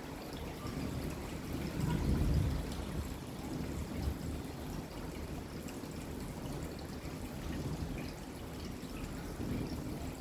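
Steady rain falling, with a soft low rumble of distant thunder swelling about two seconds in.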